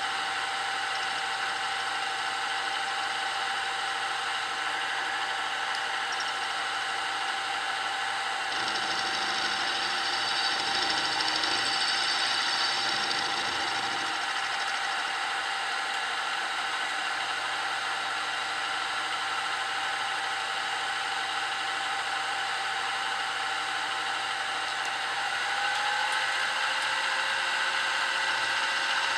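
Grizzly G0704 milling machine running, its half-inch end mill cutting a shallow slot across a metal workpiece: a steady motor and spindle whine, with a louder, rougher stretch of cutting in the middle. Near the end the pitch of the whine shifts slightly upward.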